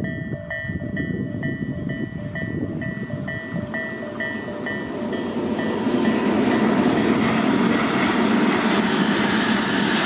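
Electronic level-crossing warning bell ringing in a steady repeating clang, then from about five seconds in an approaching train's rumble grows louder and drowns it out as the train runs through the crossing.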